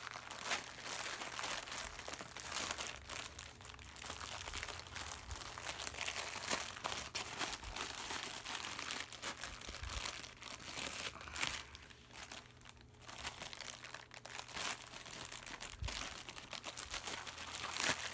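Packaging being opened by hand: continuous crinkling and rustling of the wrapping, with many small crackles, easing off briefly about two thirds of the way through.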